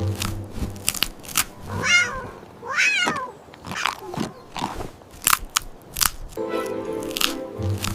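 Cat crunching on a hard treat with sharp, crackly bites throughout, and meowing twice, about two and three seconds in.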